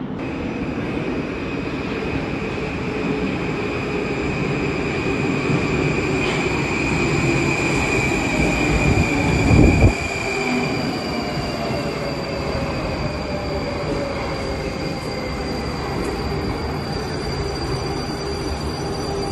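A Moscow Metro train running into the station and slowing along the platform, with a steady rumble of wheels on rail and whining tones from the motors that fall in pitch as it brakes. There is a brief low rush of air just before halfway, the loudest moment.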